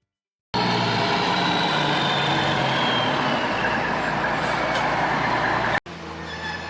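Loud heavy-vehicle engine noise, like a truck or construction machine running. It starts suddenly after a brief silence and cuts off abruptly near the end, giving way to a quieter steady machine hum.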